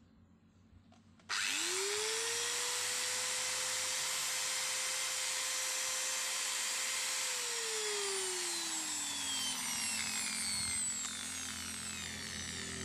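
Electric angle grinder starting the moment it is plugged in even though its on/off switch is set to off: the switch is faulty and no longer cuts the power. The motor spins up to a steady high whine for several seconds, then winds down with a falling whine once the plug is pulled.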